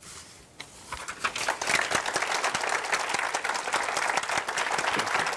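Audience applause: a few scattered claps that build within about two seconds into steady clapping from the whole room.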